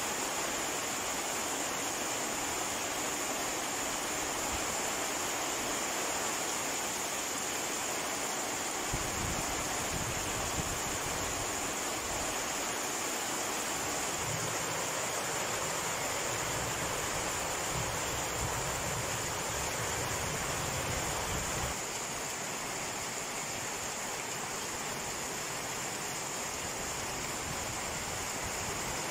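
Steady rain falling, a continuous even hiss. A low rumble joins it from about nine seconds in and stops abruptly about twenty-two seconds in.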